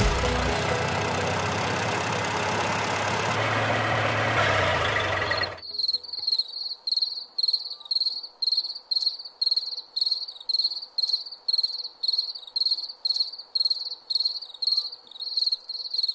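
Background music that cuts off about five and a half seconds in, followed by a cricket chirping steadily, about two high chirps a second.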